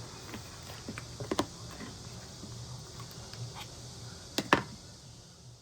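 Scattered light clicks and taps over a steady low hum, with a sharper double click about a second and a half in and another about four and a half seconds in.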